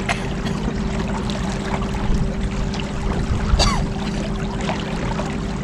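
Small boat under way on an electric trolling motor: a steady motor hum over continuous water rushing and splashing along the hull, with a brief squeak a little past halfway.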